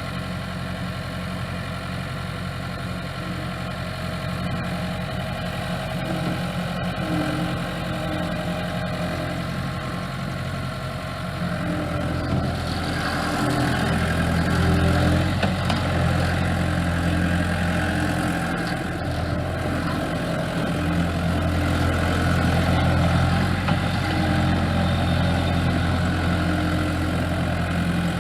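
Case skid steer's engine running steadily at idle, growing louder and fuller about twelve seconds in.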